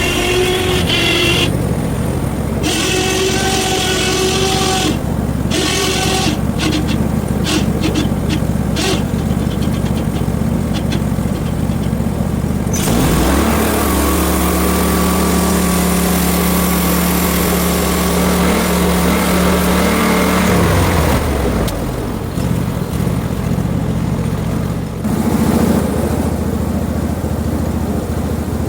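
Portable band sawmill's gas engine running steadily, with a higher whine and a few clicks in the first part. For several seconds in the middle the engine settles into a steadier, lower hum before its note shifts again.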